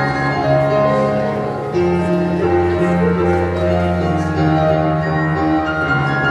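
Piano playing held bass notes under changing chords, the notes ringing on. A slight dip in loudness just before a new chord comes in near the two-second mark.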